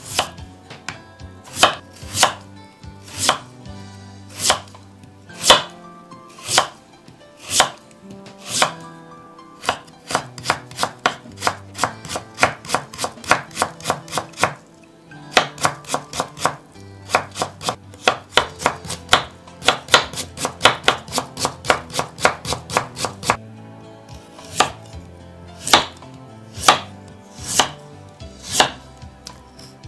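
Kitchen knife cutting daikon radish on a wooden cutting board. Single sharp strokes come about one a second at first, then a fast run of about three to four strokes a second while the stacked slices are cut into thin strips. Near the end the strokes slow to about one a second again as a carrot is sliced.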